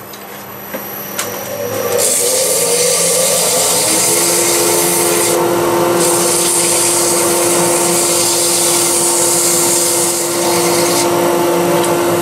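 Sandpaper pressed against a small wooden workpiece spinning on a wood lathe: a steady sanding hiss starts about two seconds in, over the lathe's steady running tone.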